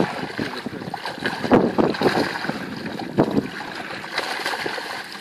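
Water splashing and running off a fishing keepnet as it is hauled out of a lake, with wind buffeting the microphone in irregular gusts.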